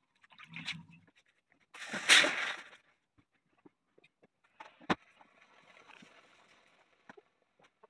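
Hand-work sounds of a felt hat hood being pulled and pressed over a wooden hat block: rubbing and rustling, with a loud rush of noise about a second long around two seconds in and a single sharp knock near five seconds.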